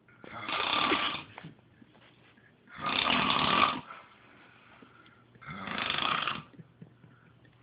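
A person snoring loudly: three snores, each about a second long, coming about every two and a half seconds, with quiet breaths between.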